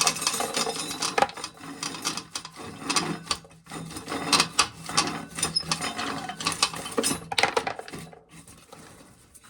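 Dry field corn being shelled: kernels scraping off the cob and rattling into a container in a dense run of clicks and scrapes. It thins out and fades over the last second or so.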